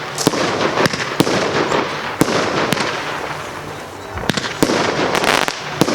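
Consumer firework barrage going off: a string of sharp bangs about half a second to a second apart, over continuous crackling.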